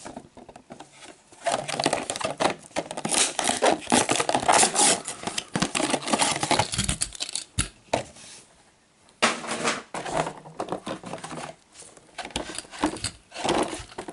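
A Hot Wheels blister card being torn open by hand: cardboard tearing and the plastic blister crinkling in bursts, with a couple of short knocks about seven seconds in.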